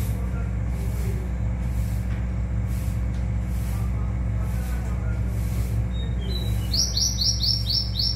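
A caged male rowti songbird sings a quick run of about six repeated high notes, starting about six seconds in, over a steady low hum.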